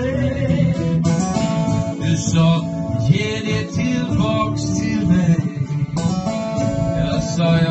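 Two acoustic guitars strummed and an upright double bass played live, with a man singing.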